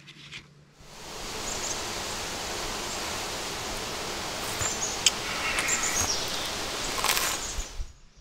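Steady rustle of wind through aspen leaves, with a few short high bird chirps. It starts about a second in and cuts off just before the end.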